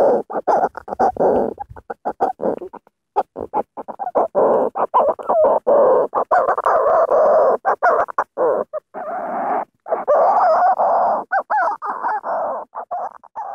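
Seabird calls: many short cackling calls in quick succession, broken by brief gaps, thin-sounding with little bass or treble, fading out near the end.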